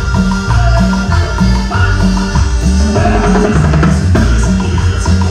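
Live band playing a steady dance rhythm on drum kit and bass, loud and continuous.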